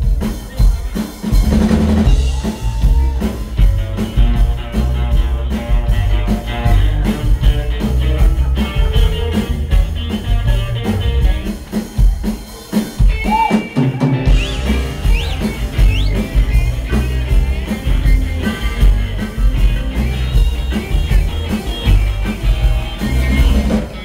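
Live reggae band playing: drum kit with rimshots and bass drum over an upright bass line, electric guitar, and a harmonica played into a microphone.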